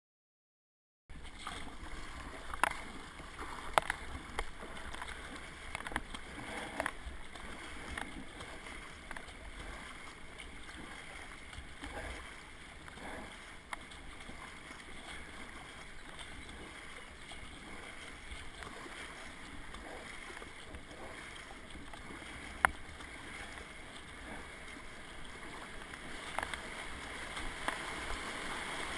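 Kayak paddle strokes dipping and splashing on river water, with scattered sharp clicks, over the steady rush of the current. The rush of water swells near the end as the kayak runs into white-water rapids.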